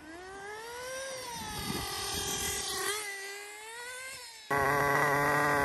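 Small nitro (glow-fuel) engine of an RC car running during break-in, its high-pitched note rising and falling with the throttle as the car runs up and down. About four and a half seconds in it turns suddenly louder and holds a steady pitch before dipping again.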